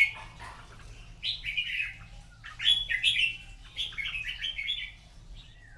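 Red-whiskered bulbul singing: three short, bright warbled phrases with pauses between them, in the manner of competition singing.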